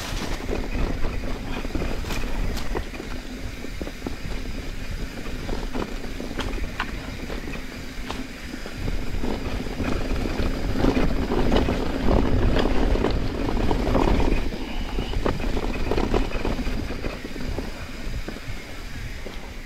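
Mountain bike riding fast down dirt forest singletrack: tyres rolling over dirt and leaf litter, with frequent clicks and knocks from the bike over roots and bumps, and wind buffeting the microphone. Louder through the middle.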